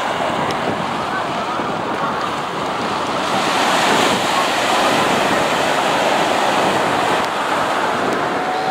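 Small Atlantic waves breaking and washing up on a sandy beach in a steady surf that swells a little louder about four seconds in.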